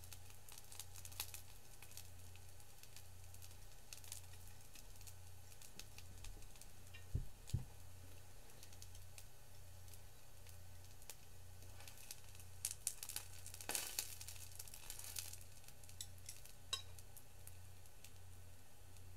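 Rice balls frying in an electric skillet: a faint, steady sizzle with scattered fine crackles. Two low thumps about seven seconds in, then brief handling noise and a light clink as a ceramic plate is picked up.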